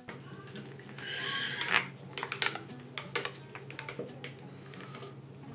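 Stainless-steel cable and its metal fitting scraping and clicking against wood as they are worked into a drilled hole, a string of light irregular clicks and scrapes, busiest about a second in. A steady low hum runs underneath.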